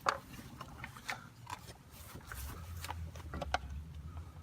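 Light clicks and knocks of wood and tools being handled and positioned, with a sharper knock right at the start and a faint low hum coming in about halfway.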